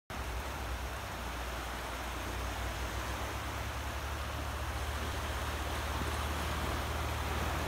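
Steady outdoor background noise at the shore: a constant low rumble under an even hiss, with no distinct events.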